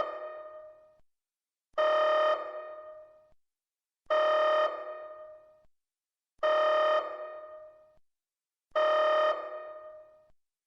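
Electronic alert tone repeating about every two and a half seconds: each a steady synthesized note held for almost a second, then fading away, signalling an incoming emergency broadcast.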